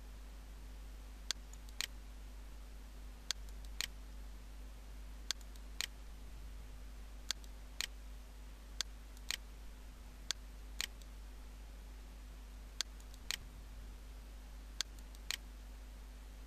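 Computer mouse clicking: about eight pairs of sharp clicks, the two in each pair about half a second apart, one pair every couple of seconds, over a steady low electrical hum.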